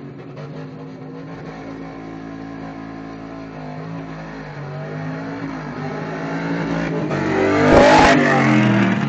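An 800-horsepower NASCAR stock car accelerating flat out down the straight, its engine growing louder as it approaches. It passes close by about eight seconds in, the loudest moment, and the engine note then falls in pitch as it goes away.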